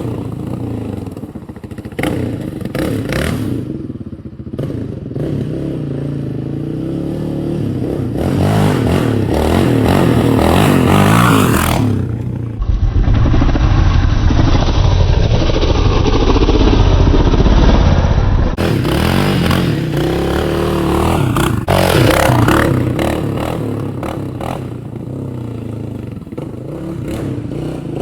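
Yamaha Raptor 700R quad's single-cylinder four-stroke engine, its exhaust baffle removed, revving up and down as it is ridden. The pitch rises and falls with the throttle, and a heavy low rumble dominates for several seconds in the middle.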